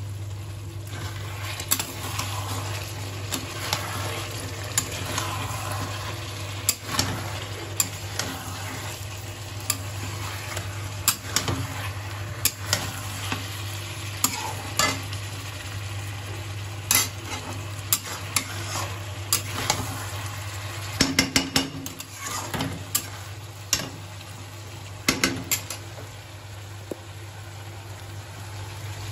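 Chicken and onions sizzling in oil in a metal kadai while a flat metal spatula stirs and scrapes, clinking against the pan many times, with flurries of quick clanks about three-quarters of the way in. A steady low hum runs underneath.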